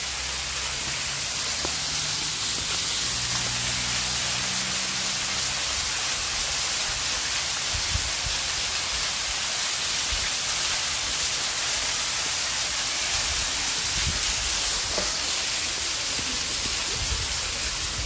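A small waterfall cascading down a rock cleft, a steady, even rush of falling water. There are a few brief low thumps, one about halfway through and two near the end.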